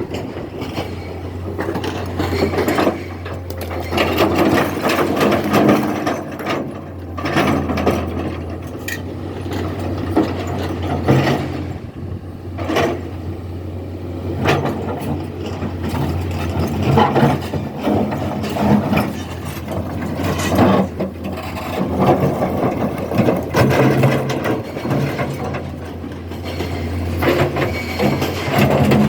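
Excavator at work: a steady low engine drone with repeated irregular metallic clanks and rattles.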